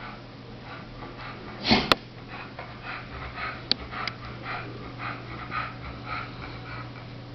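A dog's short noisy breaths, about two a second, with one sudden loud burst about two seconds in that ends in a sharp click.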